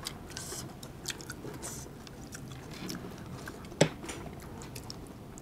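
People chewing food close to the microphone: soft wet mouth sounds and small clicks, with one sharper click nearly four seconds in.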